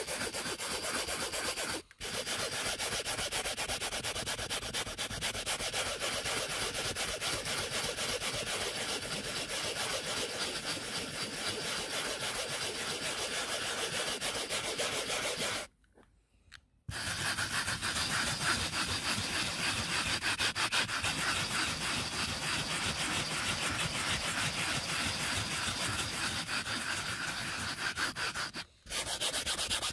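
Small stiff-bristled brush from a Turtle Wax Power Out can scrubbing cloth car-seat upholstery in fast back-and-forth strokes, working foamed stain remover into the fabric to lift a stain. The scrubbing breaks off briefly a couple of seconds in, stops for about a second in the middle, and pauses again near the end.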